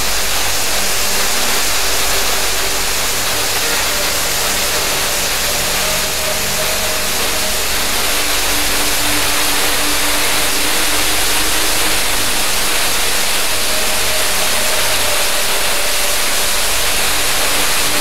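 Waterfall pouring over limestone tufa ledges into a pool: a loud, steady rush of falling water.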